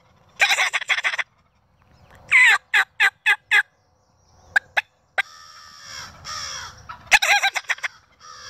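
Wild turkeys: a tom gobbles twice, about half a second in and again near the end. Between the gobbles comes a run of about five yelps.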